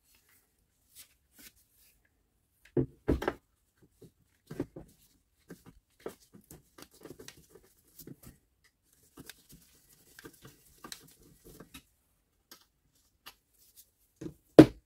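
Handling noises from a Milwaukee M18 cordless circular saw being turned over and set down on a wooden bench during disassembly: scattered light clicks and taps. There are two heavier knocks about three seconds in, and the loudest, a sharp knock, comes near the end.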